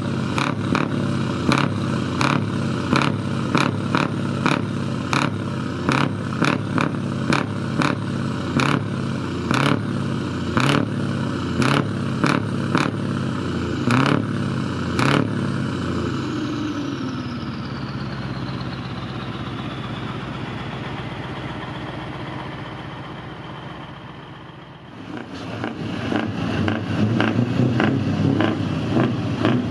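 Heavy truck engine running at idle, with sharp regular ticks about twice a second over it. About 16 s in the ticks stop, and the engine note and a high whine fall away slowly over several seconds, as the engine winds down. About 25 s in, a louder engine sound with similar ticking starts.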